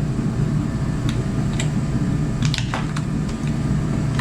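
A steady low machine hum, with a few light clicks and rustles of spare parts and their packaging being handled about one and a half and two and a half seconds in.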